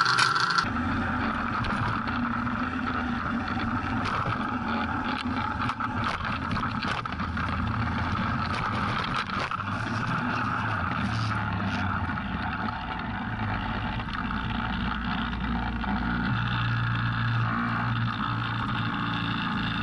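Snowmobile engine running steadily under load as it pulls a cargo sled through snow, with the hiss of the sled and track moving over the snow.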